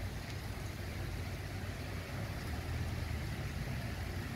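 Rain falling steadily onto a wet street, an even hiss with a low rumble underneath.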